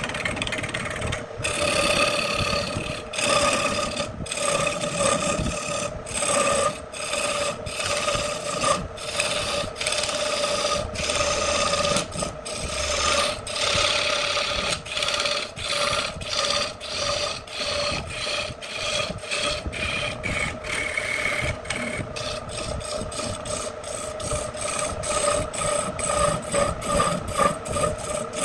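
Electric wood lathe spinning a wooden vessel while a hand-held turning tool cuts into it: a continuous rasping scrape over a steady tone from the machine, broken by many brief gaps as the cut eases off.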